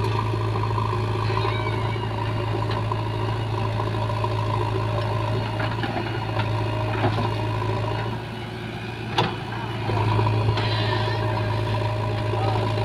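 Diesel engines of a JCB 3DX backhoe loader and a tractor running steadily while the backhoe loads soil into the tractor's trailer. The engine hum dips for about two seconds past the middle, with one sharp knock about nine seconds in.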